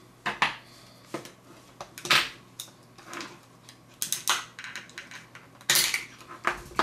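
Irregular sharp clicks and short scrapes of hard plastic and metal as a flat metal tool pries at the snap-together plastic case of a quartz clock movement. The loudest snaps come about two seconds in and again near the end.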